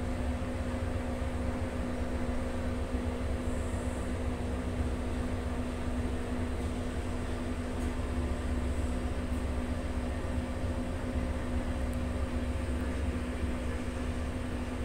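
Steady background hum: a constant low tone with a fainter tone above it, over a low rumble and an even hiss, unchanging throughout.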